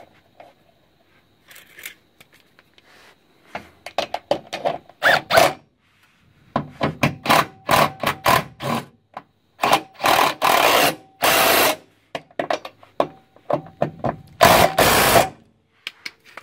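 Handheld power tool on a socket extension driving the subframe crossmember bolts home through their spacer washers, in a series of short bursts followed by two longer, louder runs near the end.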